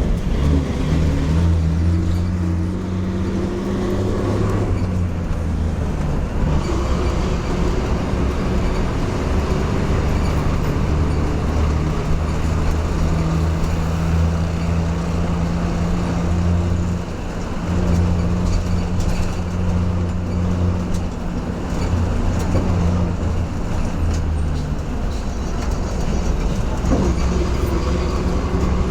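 Interior of a city bus under way: a steady low engine drone with road noise, heard from inside the cabin. The drone dips and picks up again a few times as the bus changes speed.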